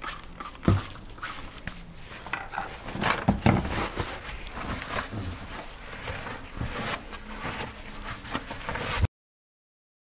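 Wiping and scraping debris from the bottom of a stainless-steel dishwasher tub with a damp paper towel: irregular rubbing with scattered taps and knocks, a few of them louder. The sound cuts off to silence about nine seconds in.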